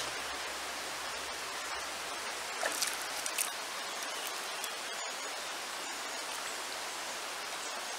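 Shallow river water running and rippling over stones: a steady rushing with a few brief, sharper splashes about three seconds in.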